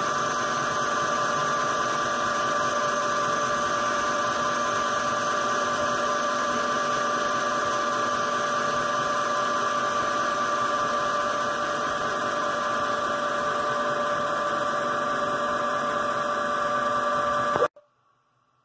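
Homemade CNC lathe running steadily while its tool turns an aluminium ball, a constant machine whine with several steady tones over a noisy hiss of cutting. It cuts off suddenly near the end.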